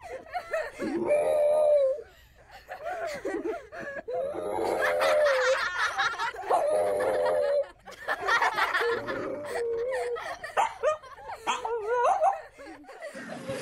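French bulldog howling in about five long, wavering calls, each lasting about a second, with short breaks between them.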